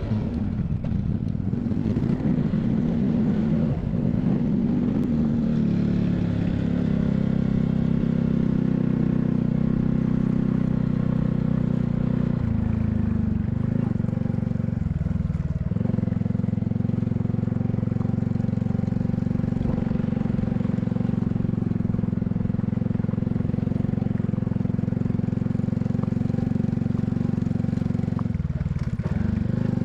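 Honda Cross Cub 110's single-cylinder four-stroke engine running steadily under way, with wind and road noise. The engine note drops away briefly twice, around fifteen seconds in and near the end.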